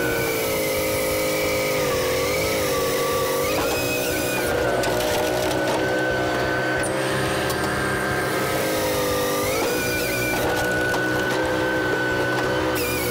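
Japa 365 firewood processor running steadily as its hydraulic splitter pushes logs through a star-shaped wedge; the machine's drone dips in pitch and comes back up twice, around two to four seconds in and again near ten seconds, as it takes the load of a split.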